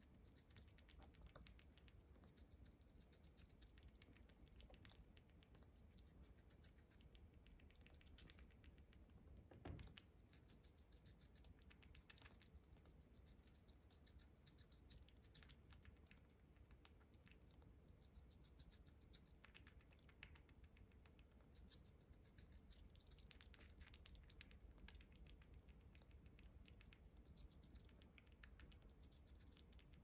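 Baby squirrel chewing and nibbling a grape: faint, quick wet clicks in short clusters. There is one soft thump about ten seconds in.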